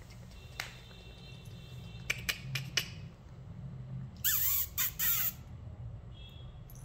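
Pomeranian puppy yapping: three quick, squawky yaps close together about four seconds in, after a few sharp clicks.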